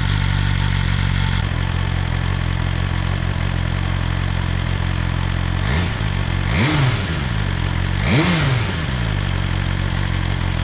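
2024 BMW S1000RR inline-four engine idling steadily on its stock exhaust, with three quick throttle blips to about 4,000 rpm between about six and eight seconds in, the last two larger. Each blip rises and falls straight back to idle. The stock exhaust note is painfully quiet.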